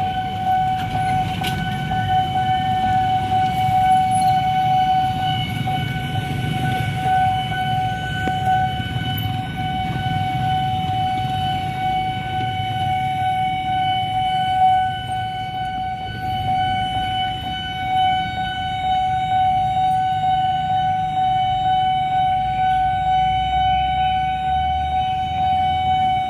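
Railway level-crossing warning alarm sounding one steady high tone without a break, over the low rumble of road traffic.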